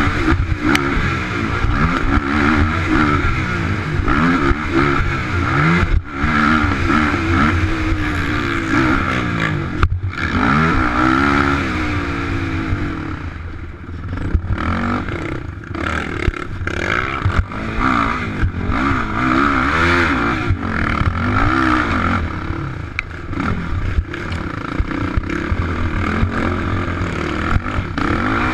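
Sport quad's engine, heard from on board, revving up and down over and over as the ATV accelerates and backs off along a rough dirt track. Occasional sharp knocks come from the machine bouncing over bumps.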